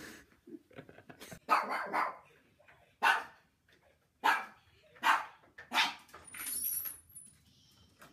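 A series of about six short barks, roughly one a second, then a softer, longer sound near the end.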